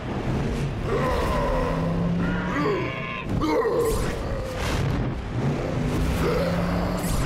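Cartoon dragons roaring and growling in an attack: several long cries that swoop up and down in pitch, over a low steady rumble.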